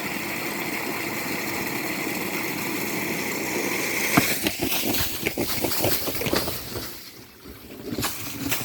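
Borewell air compressor running with a steady hum and hiss, which stops with a sharp click about four seconds in; irregular knocks and rattles follow.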